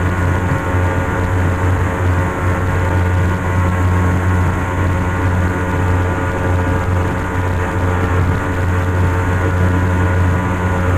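Kingfisher Fastwater jet boat's engine running steadily under way, heard on board as an even, deep drone that holds level throughout.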